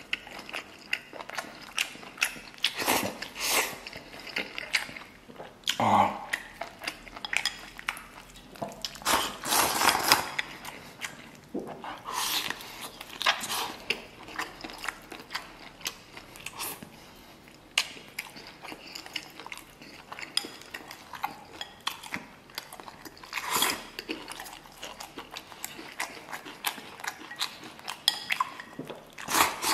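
Close-up eating sounds: a man slurping and chewing stewed cow hoof and rice, with wooden chopsticks clicking against a ceramic bowl. The slurps come in short noisy bursts every few seconds between the wet chewing.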